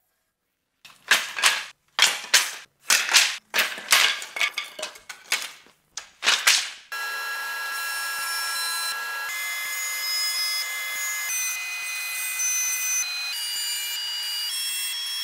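Woodworking power tools cutting wood strips: a run of short, loud cuts in quick succession, then from about halfway a steady loud running noise with a high whine from a thickness planer, its pitch shifting every second or two.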